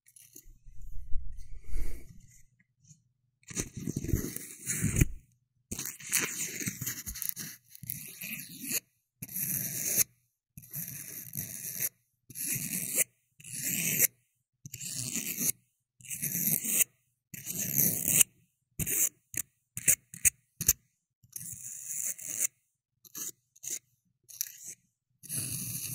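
Close-up scraping and rubbing strokes, one after another about once a second, with a few shorter, quicker strokes past the middle.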